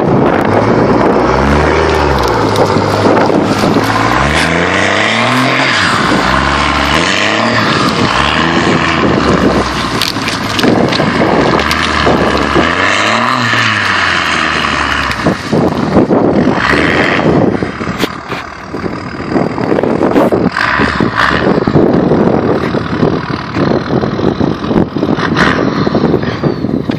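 2001 Dodge Ram's 5.9-litre Cummins inline-six turbo-diesel revving up and falling back several times under load as the truck drags a tree trunk on a chain, its rear wheels spinning in the snow, over a steady rush of noise.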